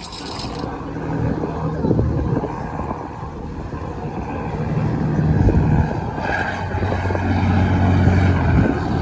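Boat engine running steadily, its low hum shifting in pitch a few times, with some rushing noise over it.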